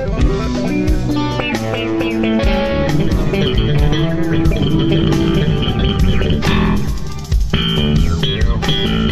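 Live instrumental rock: electric guitar and bass guitar playing with a band, with a brief drop in level about seven seconds in.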